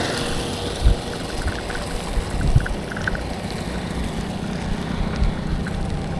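Steady road and wind rumble from riding a bicycle along a road with traffic, with two short low thumps about a second and two and a half seconds in.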